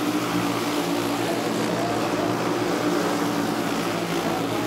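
A pack of racing dirt karts with single-cylinder four-stroke Briggs & Stratton Animal engines running at speed together. Their combined engine noise is a steady drone, with some engines' pitch rising and falling as they pass.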